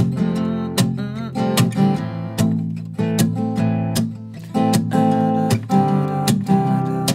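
Steel-string acoustic guitar played in a driving 'rolling train' rhythm: a bass note on the beat alternating with down-and-up strums on the upper strings. The chords move from F to A minor, then run A minor, Gsus4, C with G in the bass, and back to F.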